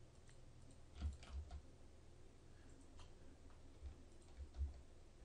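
Faint computer mouse clicks and keyboard key presses, a handful of short clicks with a dull thud under each, bunched about a second in and again from about three seconds in, over quiet room tone. They come from editing a 3D mesh in Blender.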